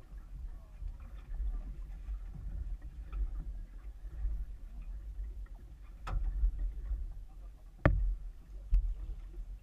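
Muffled low rumble of wind and water on a small fishing boat, dulled by a waterproof camera case, with sharp knocks on the boat: one about six seconds in, a louder one near the end and a fainter one just after.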